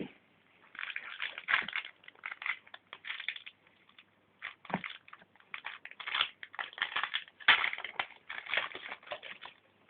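Irregular crinkling and rustling of Yu-Gi-Oh booster pack wrappers and cards being handled, in quick uneven bursts with a few short pauses.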